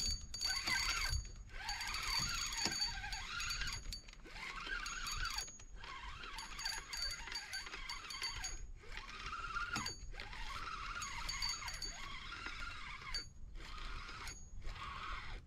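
Fishing reel being cranked in short runs of a second or two, with brief pauses between, as a hooked brook trout is reeled in.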